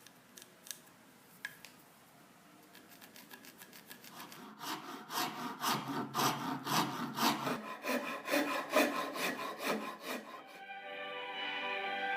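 A hand tool worked back and forth on wood in rhythmic strokes, about three a second, that grow louder, after a few light clicks. Music with held notes comes in near the end.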